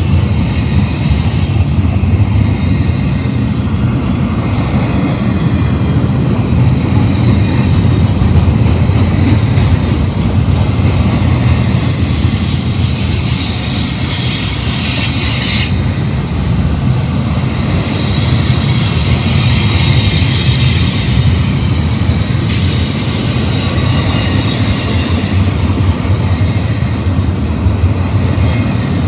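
Double-stack intermodal train's loaded well cars rolling past close by: a loud, steady rumble of steel wheels on rail. From about twelve seconds in, high-pitched wheel squeal rises and fades several times as the wheels take the curve.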